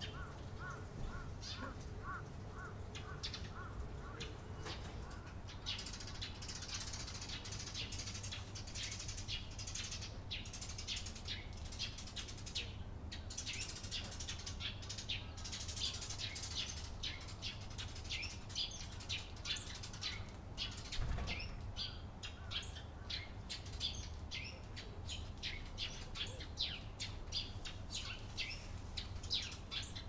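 A flock of Eurasian tree sparrows chirping: many short, high calls in quick succession, thickest in the first half, over a steady low rumble. A single dull thump about two-thirds through.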